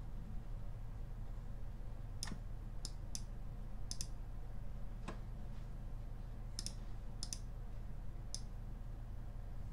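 Computer mouse clicking, about eight separate clicks at irregular intervals, over a steady low hum.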